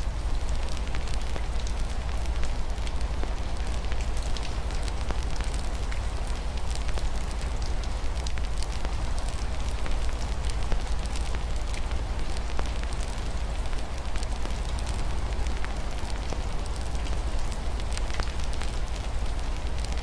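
Wood fire crackling in a fireplace, with many small irregular pops over a steady low rumble. A soft, steady rain hiss runs beneath it.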